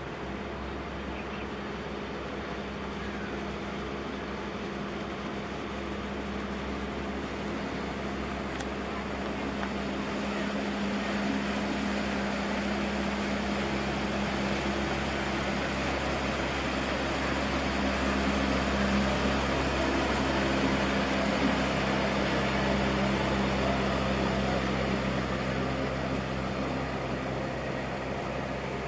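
Outboard motor of a small speedboat running steadily, growing louder toward the middle and easing a little near the end; its note shifts slightly about halfway.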